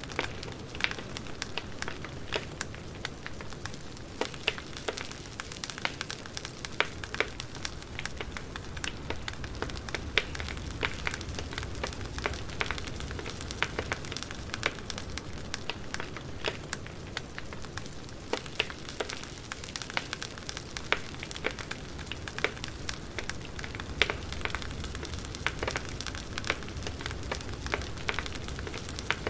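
Campfire burning, with frequent sharp crackles and pops over a steady low hiss of flames.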